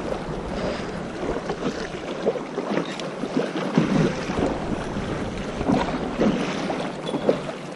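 Choppy river rapids splashing against and over an inflatable stand-up paddleboard, with irregular slaps and splashes of water over a steady rush.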